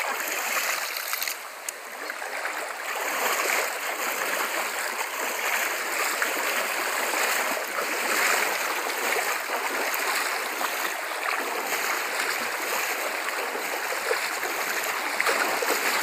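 Steady noise of a shallow river's water running over its rocky bed, with the splashing of legs wading through it.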